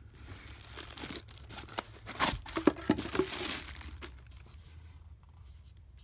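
Thin plastic bag crinkling and tearing as a battery pack is unwrapped by hand, busiest from about two to four seconds in and fading away after.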